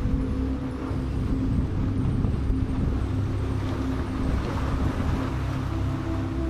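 Boat engine running steadily as a boat passes through the inlet: a low rumble with a constant hum.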